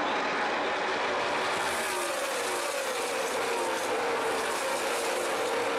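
A pack of NASCAR stock cars' V8 engines running at caution pace. Their engine notes slide down in pitch as cars go by.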